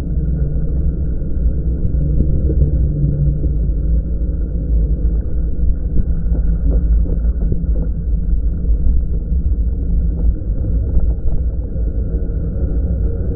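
Steady, muffled low rumble of wind and riding noise on an action camera's microphone during an e-bike ride, with a few faint knocks in the middle.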